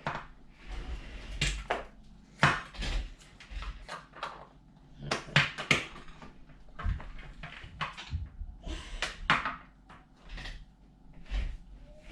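ORB Slimy slime being squeezed and stretched by hand, making irregular squelches and sharp sticky pops, some with a soft thud.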